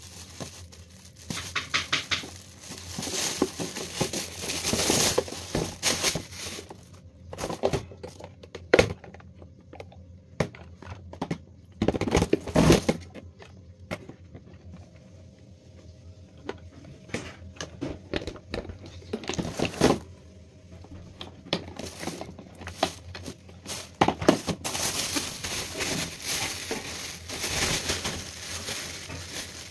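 Plastic packaging bags rustling and crinkling as fan parts are unwrapped, with occasional sharp knocks as the hard plastic fan base, pole and motor housing are handled and set down.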